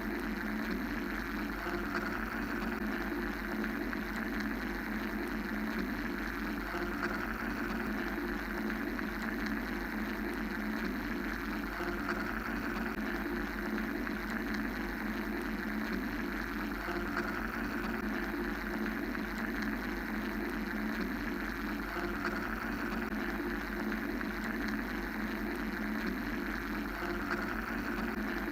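Steady mechanical white-noise drone: a low hum and rumble under a hissy band that slowly swells and fades every few seconds.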